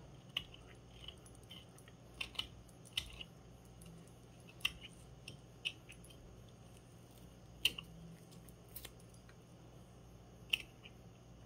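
Carving knife cutting into a wooden log by hand: short, irregular crisp cuts and snaps as chips come away. The strongest cuts come about 2, 3, 4.5, 7.5 and 10.5 seconds in.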